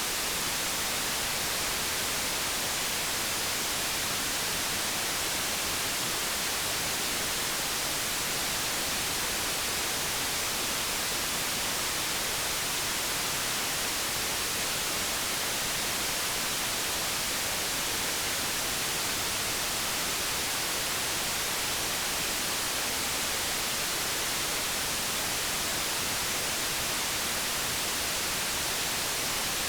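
Steady, unchanging white noise: an even hiss, strongest in the high range, made as a sleep sound for soothing a crying infant.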